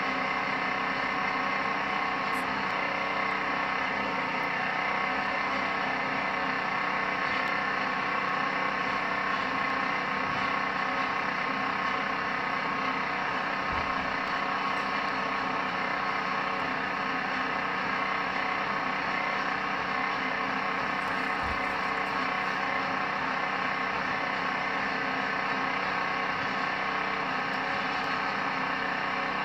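Jackhammer-style rock drill hammering into a sheer rock face, running steadily without a break.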